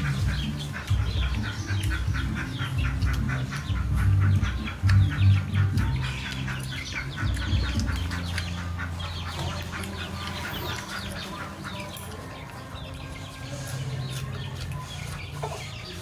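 Domestic fowl clucking and calling in rapid runs, busiest in the first half and thinning out later, over a low rumble.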